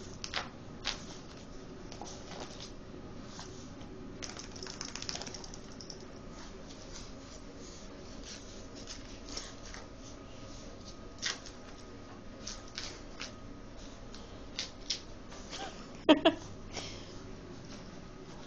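A wet dog rubbing himself along the floor after a bath: scattered scrapes, rustles and light taps of fur and claws against the floor. Near the end comes one brief pitched sound, the loudest moment.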